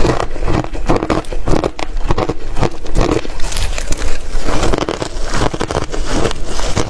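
Close-miked crunching of ice being bitten and chewed: an irregular run of crisp crunches, several a second.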